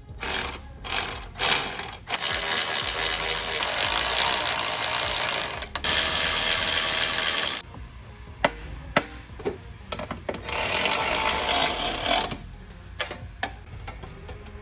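Mechanical tool noise from work on the car: two long stretches of dense, rapid clicking or rasping, the first about five seconds long and the second about two, with single sharp clicks and knocks between and after them.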